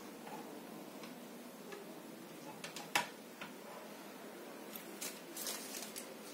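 Quiet room tone with scattered faint clicks, and one sharper click about three seconds in.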